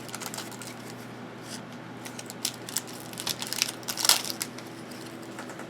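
Trading-card pack wrappers crinkling and cards being handled, with scattered short rustles and a couple of louder crackles about two and a half and four seconds in, over a faint steady hum.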